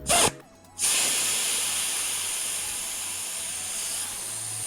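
A short sharp burst, then a steady hiss of air escaping from a bicycle inner tube that slowly fades: the tube is being let down after it bulged out from under the tyre bead near the valve and would not seat.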